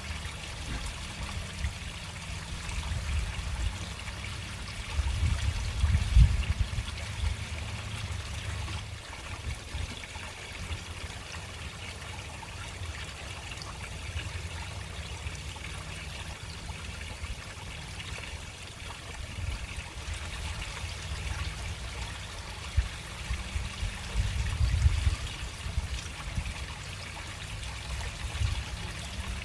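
Water running slowly into a storm drain: a steady trickling hiss over a deep low rumble, which swells twice, about five seconds in and again near the end.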